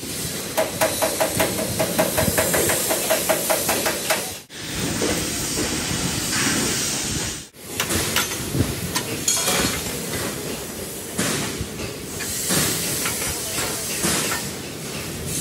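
Factory workshop noise with steady hissing, in three short cut clips: rapid, even mechanical ticking over a steady hum in the first few seconds, then hissing with scattered knocks.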